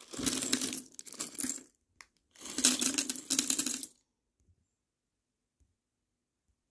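Small plastic Lego pieces poured from a plastic bag, clattering onto a pile in two bursts about a second and a half long each.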